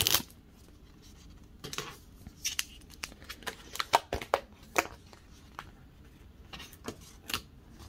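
Handling sounds while unwrapping a new Samsung Galaxy Z Fold 5: the phone's paper wrap rustling as it is peeled away, with scattered small clicks and taps as the phone is lifted and handled.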